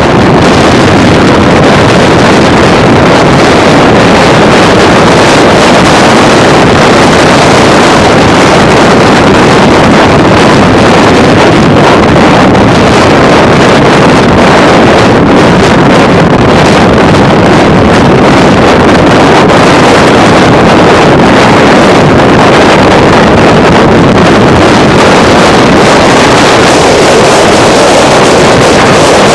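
Loud, steady rush of wind on the microphone of a camera riding on a car at freeway speed, with road and engine noise mixed in.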